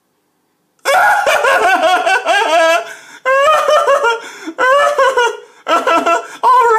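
A cartoon character laughing in a run of bursts, starting about a second in after a brief silence.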